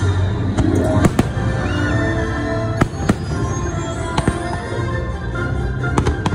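Aerial fireworks bursting: a string of sharp bangs at irregular spacing, some in quick pairs, over the fireworks show's loud music soundtrack.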